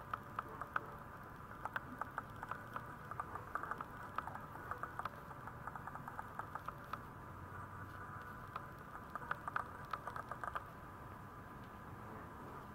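Irregular light clicking and scrabbling, in quick clusters, from a newborn Maltese puppy's claws and paws on a vinyl floor as it crawls and shifts.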